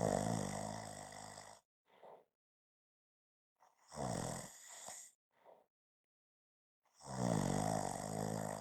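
Snoring: three loud snores, each one to one and a half seconds long and about three and a half seconds apart. The first two are each followed by a short, soft breath out.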